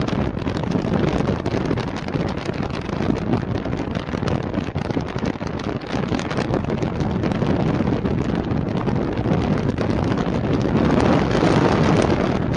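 Wind buffeting the microphone of a vehicle driving over rough desert ground, with a steady rush of noise and many small knocks and rattles. It grows a little louder near the end.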